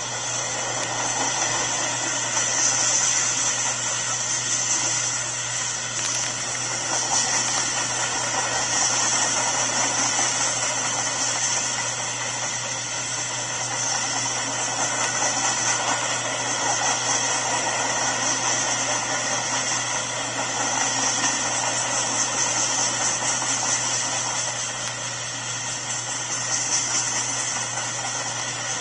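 Freight cars rolling past on steel wheels: a steady rolling rush of wheels on rail with a hissing high edge, swelling and easing slightly as the cars go by.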